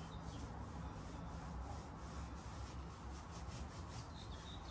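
A cloth rubbed back and forth along the top of a woven wicker sofa: a run of quick, faint scrubbing strokes.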